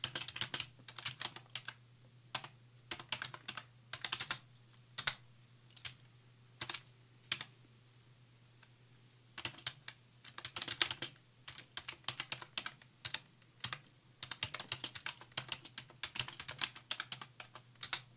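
Typing on a computer keyboard in quick bursts of key clicks, with a pause of about two seconds near the middle. A low steady hum runs underneath.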